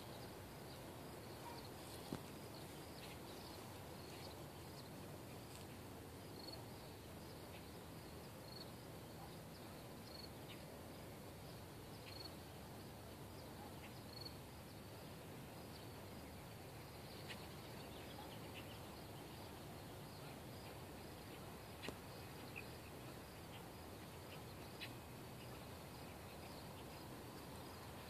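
Faint, steady outdoor background with small, high chirps every second or two and a few light clicks, typical of insects or birds in a grassy field.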